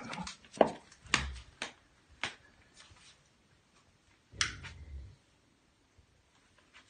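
Several sharp knocks and clicks over the first two and a half seconds, then a duller, longer thump with rustling about four and a half seconds in.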